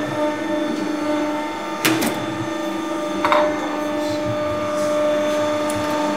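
Hydraulic workshop press's pump motor running with a steady hum, with a couple of sharp clicks about two and three seconds in.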